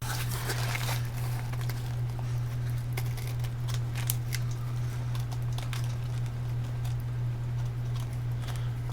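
Scattered small clicks and rustles of electronic components being sorted through in a parts box, with a rustling patch in the first second, over a steady low hum.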